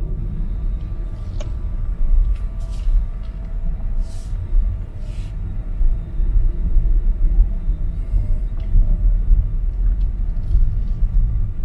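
Low road and tyre rumble heard inside a car cabin while driving slowly, with a few brief hissing swells.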